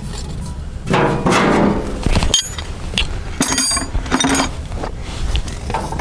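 Farmall M tractor's four-cylinder engine running, with sharp metallic clinks and taps over it.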